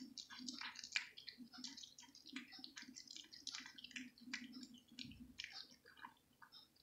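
A cat eating raw meat: a quick run of faint, wet chewing clicks and smacks.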